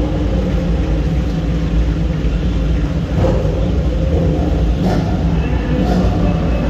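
Racing car engines running, out of sight, as a steady low rumble.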